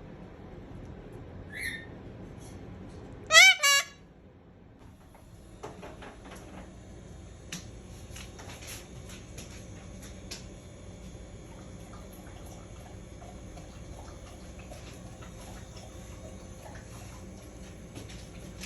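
A cockatoo gives a brief faint chirp, then about three seconds in a short, loud call that wavers in pitch. After that there is only faint room noise with scattered soft clicks.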